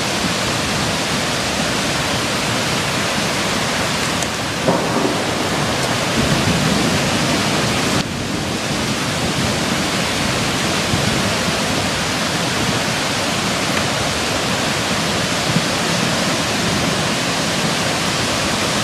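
Flash-flood torrent of muddy water carrying debris, a loud, steady rush of water, with a brief knock just under five seconds in.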